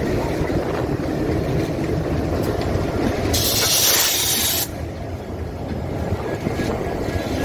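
Indian Railways diesel locomotives passing at close range: a steady low engine rumble with the rolling of wheels on rail. About three seconds in, a loud hiss bursts out for roughly a second and a half and then cuts off.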